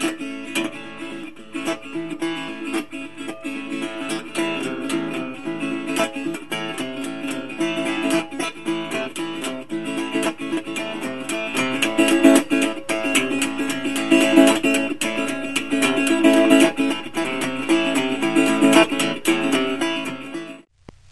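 Acoustic guitar music, quickly picked and strummed, with no singing; it cuts off abruptly near the end.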